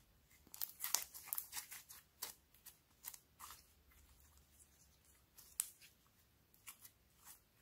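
Slime being kneaded and squeezed by hand, giving off irregular sticky crackles and small pops, thick during the first few seconds and then sparser.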